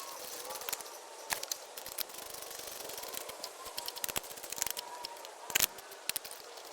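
Irregular sharp clicks and light knocks over a faint background hiss, with a louder knock about five and a half seconds in.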